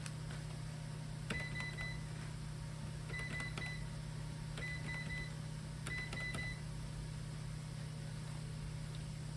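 SAM4s ER-915 electronic cash register keypad being pressed: key clicks with short high-pitched beeps, in four clusters about a second and a half apart, as character codes are entered in programming mode.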